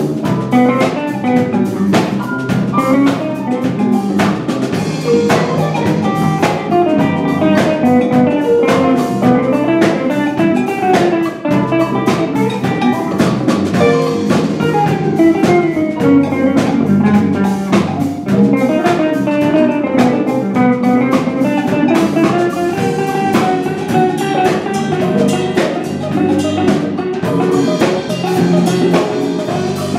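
Live instrumental band playing without vocals: electric guitar, electric bass, keyboard and drum kit, with a melodic line moving up and down over a steady drum beat.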